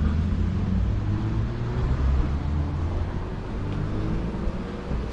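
Car engine and road noise: a steady low rumble, with the engine's pitch climbing gently in the second half.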